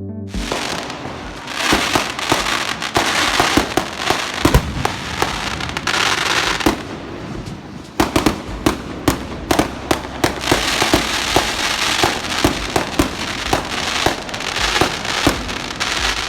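Fireworks going off: a dense, fast run of sharp cracks and pops over a crackling hiss, with another thick flurry of cracks from about halfway through.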